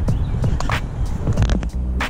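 Wind buffeting the camera's microphone, with a few soft knocks of footsteps on the grassy, stony bank.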